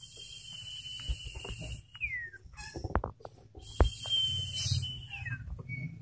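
Male iora (sirtu) in breeding condition singing: two long, steady, high whistles, each ending in a falling slur, with a few sharp clicks between them.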